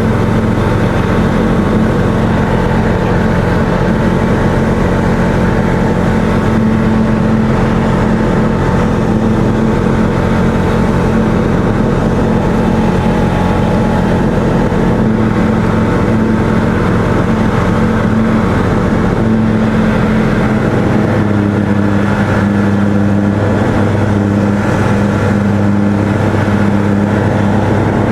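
Light aircraft's piston engine and propeller running steadily, heard from inside the cockpit; the engine note shifts about two-thirds of the way through as the power setting changes.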